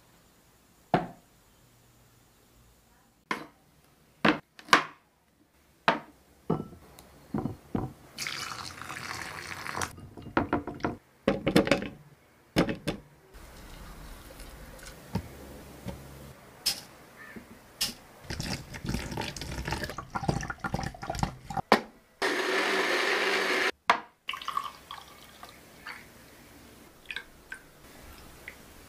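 A run of kitchen preparation sounds: short knocks and clicks as ingredients go into a mixer-grinder jar, and liquid pouring. About two-thirds of the way through, the mixer grinder runs for about two seconds, with a steady loud whirr that stops abruptly.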